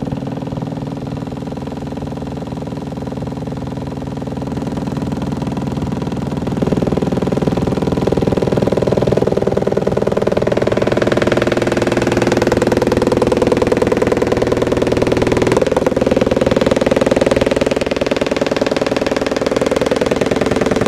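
Homemade subwoofer playing a 20 Hz test tone, heard as a loud, steady buzz with a fast flutter. It grows louder in steps as the amplifier volume is turned up toward maximum, with a sharp jump about six and a half seconds in.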